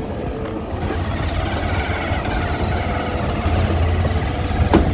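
Motorcycle engine running at low speed on a rough dirt track, a steady low rumble with one sharp knock near the end.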